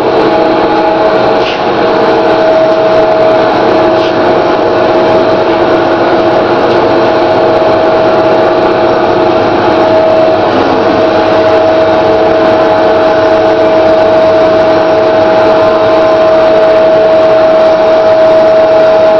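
Roller laminate press running, a steady machine drone with a constant pitched hum over it, as a laminated board passes through its rollers.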